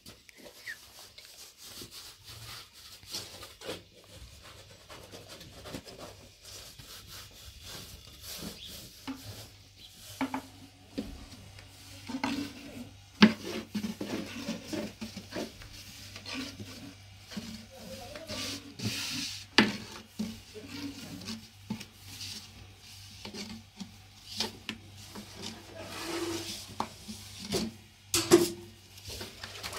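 Irregular scraping and rubbing with scattered sharp knocks, busier in the second half.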